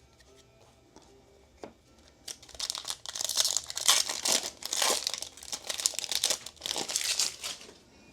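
Foil wrapper of a trading card pack being torn open and crinkled, with a burst of sharp crackling rustles starting a couple of seconds in and stopping just before the end.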